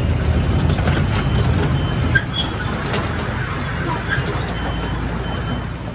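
Miniature railway train running along its track with a steady low rumble, with birds chirping over it in short, scattered calls.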